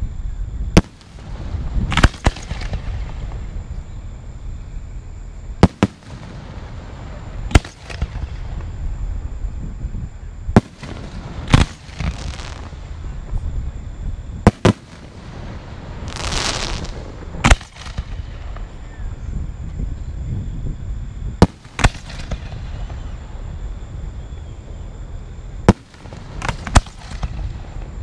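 Fireworks going off: about a dozen sharp bangs at uneven intervals, some with a short crackle trailing after, and a brief hiss about halfway through, over a steady low rumble.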